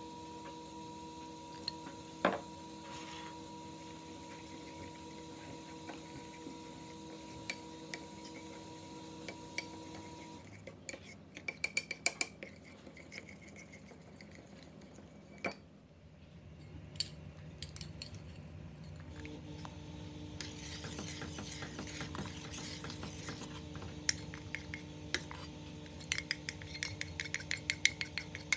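A metal spoon stirring oil and spices in a ceramic bowl, clinking against the bowl: a cluster of clinks about a third of the way in, a single knock near the middle, and a longer run of quick clinks near the end. A faint steady hum lies underneath.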